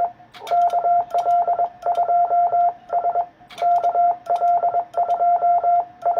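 Morse code (CW) keyed on an amateur radio transceiver: a steady beeping tone switched on and off in dots and dashes, in groups separated by short gaps, as the operator sends a CQ call and his call sign. Sharp clicks come at the start of many letter groups.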